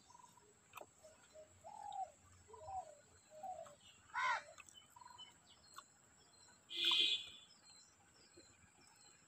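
Birds calling: a few short low notes, then a louder call that rises and falls about four seconds in, and a sharp chirp about seven seconds in.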